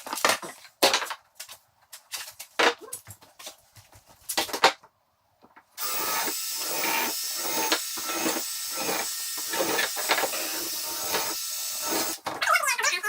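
Wooden knocks and clatter as cabinet parts are handled and fitted, several sharp loud ones in the first few seconds. After a brief dead gap about five seconds in, a steady rough scraping, rasping tool noise takes over.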